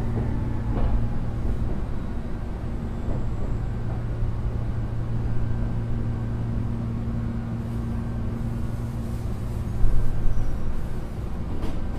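Meitetsu 6800 series electric train running between stations, heard from aboard: a steady rumble with a low, even hum. About ten seconds in, a brief louder surge of rumble.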